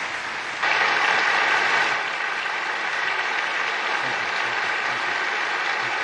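Large seated audience applauding steadily, swelling about half a second in and easing slightly after about two seconds.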